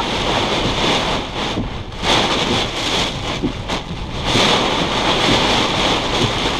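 Severe-thunderstorm wind gusting upwards of 65 mph with heavy rain lashing the vehicle, heard from inside the cabin. The noise rises and eases in gusts, dropping off briefly twice.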